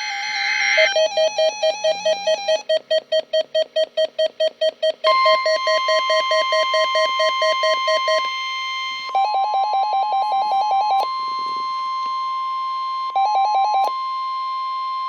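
Weather radio alert signal: electronic beeping at about four to five beeps a second. About five seconds in, a steady single-pitch warning alarm tone near 1050 Hz joins and holds, with further short runs of beeping layered over it.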